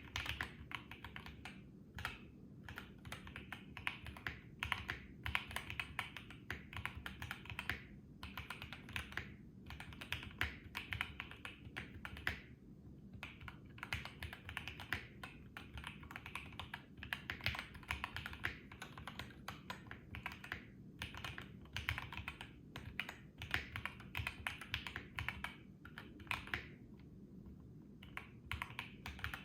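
Typing on a modded BM65 mechanical keyboard with stock Gateron CJ linear switches and PBT keycaps, dampened with case foam: dense runs of key strokes broken by short pauses.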